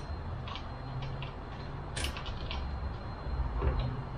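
Small clicks and clinks of metal parts being handled as the frunk hinge spring is hooked back on, with a cluster of sharper clicks about two seconds in, over a steady low hum.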